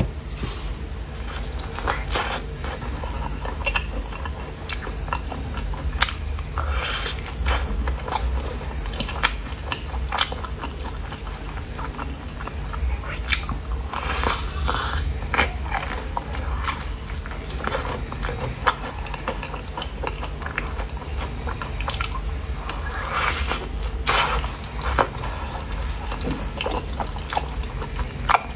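Close-miked biting and chewing of a sauce-dipped, breaded fried chicken drumstick: irregular crunching crackles, some louder bites standing out, over a steady low hum.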